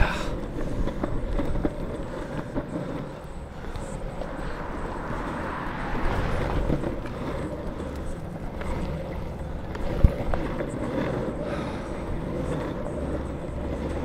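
Longboard wheels rolling over asphalt with a steady low rumble, and a single sharp knock about ten seconds in.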